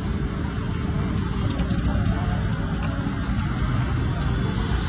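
Street traffic noise: a steady rumble of road vehicles.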